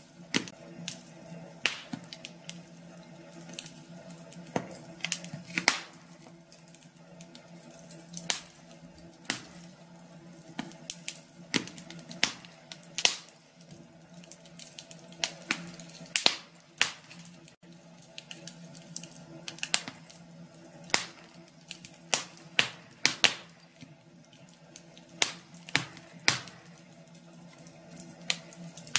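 Wood fire crackling in a fireplace: irregular sharp pops and snaps, sometimes several in quick succession.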